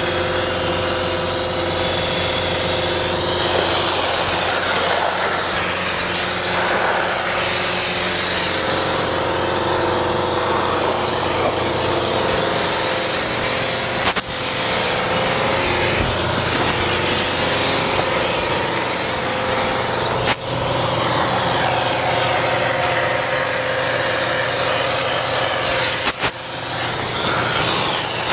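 Spray foam rig running steadily while the spray gun applies open-cell foam: a constant machine hum with the hiss of the spray. The sound cuts out for a moment three times, about 14, 20 and 26 seconds in.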